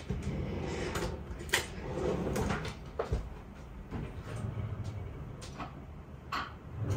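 A few short knocks and scrapes of a spoon against a stainless-steel pot of rice pudding, spaced a second or two apart, over a low rumble.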